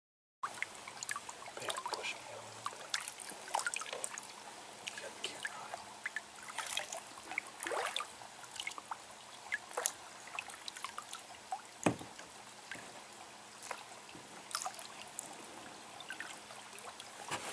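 Water trickling and dripping around a kayak easing through thick, weedy swamp shallows, with scattered small ticks and a few sharper knocks.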